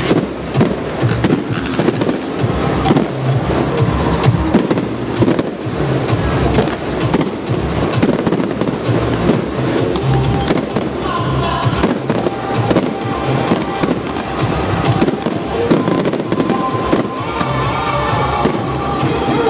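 Fireworks going off in quick succession: many sharp bangs and dense crackling from bursting shells and rising comets. Music plays underneath and grows clearer in the second half.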